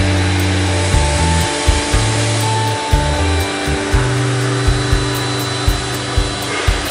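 Background music: a bass line that changes note every second or so, with sustained tones and drum hits.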